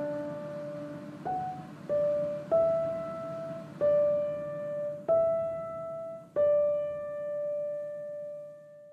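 Background music: a slow line of single piano notes, each struck and left to ring. The last note is held and fades away near the end.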